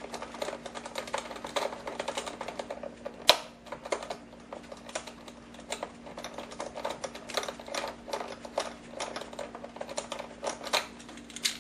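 Small screwdriver tightening the screws that hold a plastic wrist rest onto a mechanical keyboard: a run of light, irregular clicks and ticks, with one sharper click about three seconds in.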